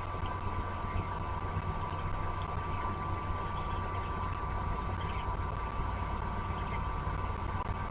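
Steady low rumble with a constant high hum through it, like distant machinery, and a few faint short chirps scattered over the top.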